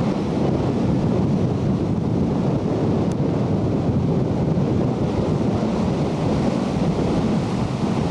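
Ocean surf with wind buffeting the camcorder microphone: a steady rushing noise.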